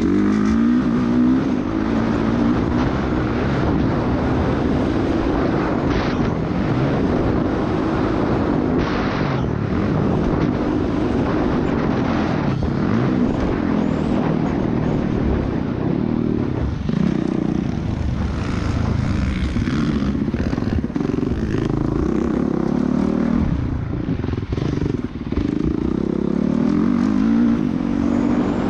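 Motocross dirt bike engine revving hard and easing off again and again as it runs around a dirt track, heard from an onboard camera.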